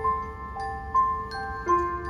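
Live orchestral music: a slow, chiming melody of struck, ringing notes from mallet percussion, about two or three notes a second, each note ringing on under the next.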